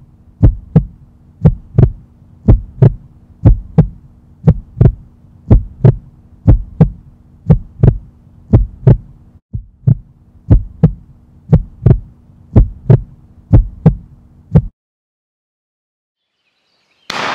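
Heartbeat sound effect: paired lub-dub thumps about once a second over a steady low hum, stopping about fifteen seconds in. Loud music cuts in near the end.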